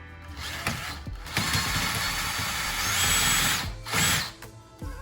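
Power drill with a socket adapter driving screws back in: one run of about two seconds, its whine rising in pitch near the end, then a short second burst.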